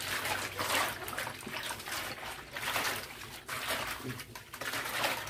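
Water sloshing and splashing in a stainless steel basin as a hand swirls it to whip hair shampoo into a lather, swelling and fading in repeated surges about once a second.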